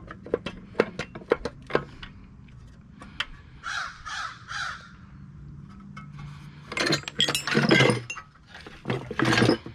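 Metal engine parts and hand tools clinking, knocking and clattering as a Tecumseh snowblower engine is taken apart, with a run of sharp clicks at the start and loud scraping or rattling later on. Three short harsh calls come from somewhere around the middle.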